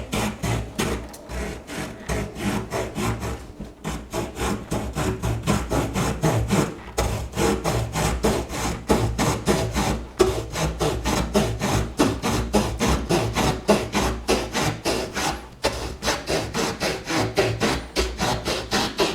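Victorinox Ranger Swiss Army knife's small folding wood saw cutting through a tree branch in fast, rhythmic back-and-forth strokes, with a few short pauses. The blade cuts easily and cleanly.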